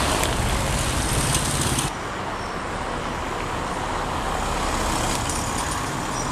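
Motor scooter engine running as it rides up the cobbled street, cutting off suddenly about two seconds in. Quieter steady street traffic noise follows.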